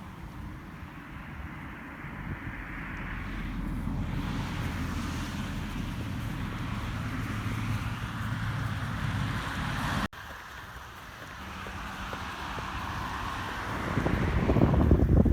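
A steady outdoor rushing noise with wind buffeting the microphone; it breaks off abruptly about ten seconds in and comes back, growing louder with strong gusts near the end.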